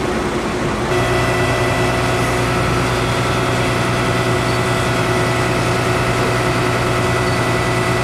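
Fire truck engine idling steadily, a constant drone at one pitch. The drone becomes steadier and more even about a second in.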